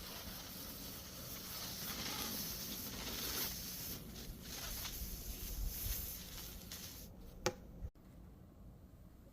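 Rustling handling noise, loudest through the middle and fading near the end, with one sharp click about seven and a half seconds in, over a steady low hum.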